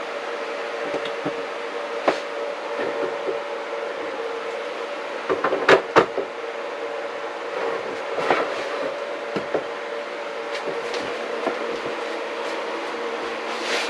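Steady mechanical hum with two held tones, with scattered clicks and knocks of tool handling over it, the loudest a quick cluster of sharp clicks about six seconds in, typical of a Milwaukee M12 battery being set into its charger.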